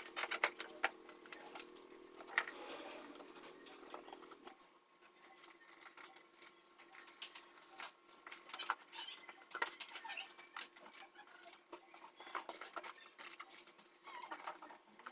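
Irregular small clicks, taps and scratchy rustles of an item being handled and wrapped for packing. A steady faint hum runs under the first few seconds and stops about four and a half seconds in.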